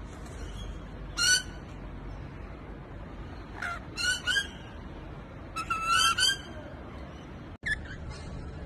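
Parrot giving short, shrill calls: a single call about a second in, two or three together around the middle, and a quick cluster near the end.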